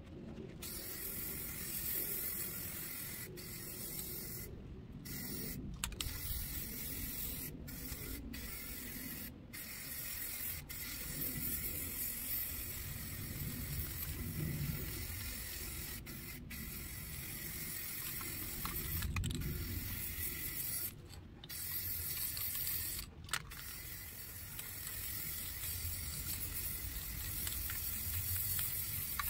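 Rust-Oleum 2X Ultra Cover aerosol spray-paint can hissing in long steady spurts as paint is sprayed. Several brief breaks come where the nozzle is let go, most of them in the first ten seconds.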